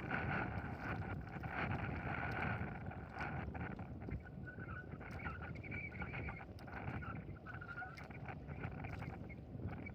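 Steady wind and water noise on a small fishing boat at sea, with scattered small clicks and a faint wavering high tone that comes and goes.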